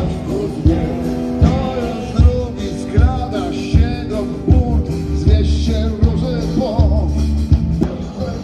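A rock-and-roll song with a singer and a steady beat about every three-quarters of a second.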